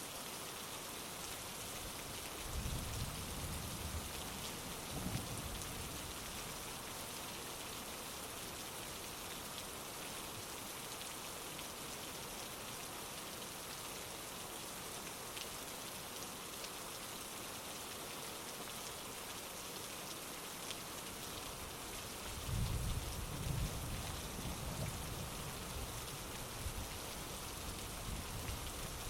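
Heavy rain falling steadily, with low rolls of thunder rumbling a few seconds in and again near the end.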